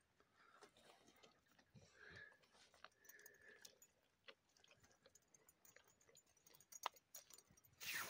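Near silence with faint, scattered small crunches and clicks of a dog chewing something on stony ground, one sharper click about seven seconds in.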